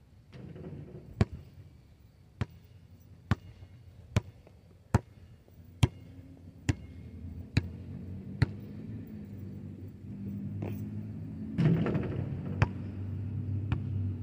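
A basketball bouncing on asphalt: about nine sharp bounces at a steady pace of roughly one a second. In the second half a low rumble builds, with a burst of noise near the end and a couple more single knocks.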